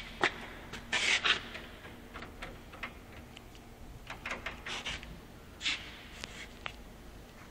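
Handling noise from the recording phone: scattered light clicks and short rustles as it is moved around the car's frame and brushed against clothing, over a faint steady hum. No engine is running.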